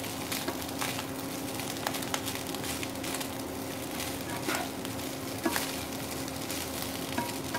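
Rice and vegetables sizzling in a hot nonstick wok while being tossed and mixed with a black ladle and spatula. Now and then the utensils give a short scrape or soft knock against the pan, over a steady low hum.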